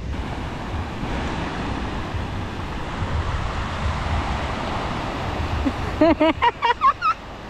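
Ocean surf washing in, a steady hiss, with a few short high-pitched cries near the end.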